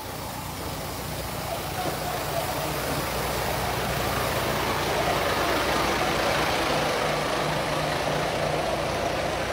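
Truck engine idling steadily, growing gradually louder over the first few seconds, then holding level.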